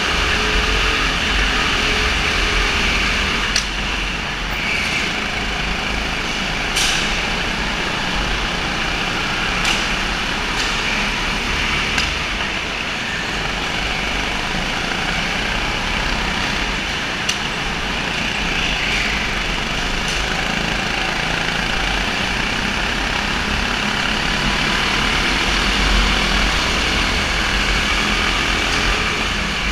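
Go-kart engines running flat out during an indoor kart race, a steady dense engine noise with a few short sharp clicks scattered through it.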